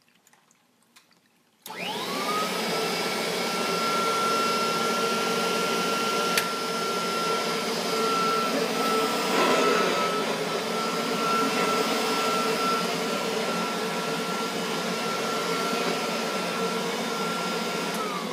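Kirby upright vacuum cleaner switched on about two seconds in. Its motor spins up almost at once to a steady high whine and runs evenly, with one sharp click partway through, then is switched off at the very end, the whine starting to fall away.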